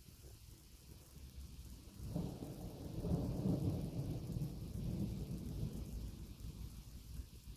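Rolling thunder from an approaching thunderstorm: a low rumble that swells about two seconds in, peaks a second or two later and slowly dies away.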